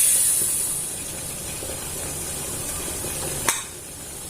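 Pressure cooker venting steam: a loud high hiss fades over the first second or so to a lower steady hiss. A sharp click comes about three and a half seconds in.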